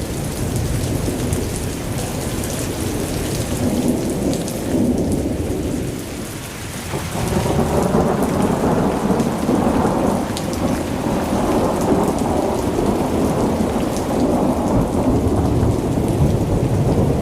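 Thunderstorm: heavy rain falling with a continuous low rumble of thunder, which dips briefly and then grows louder about seven seconds in.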